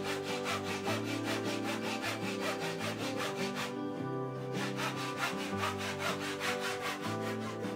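Handsaw cutting across a thin spruce board, the soundboard of a kokle, in quick even back-and-forth strokes. The sawing pauses briefly a little past halfway, then starts again. Soft instrumental music plays underneath.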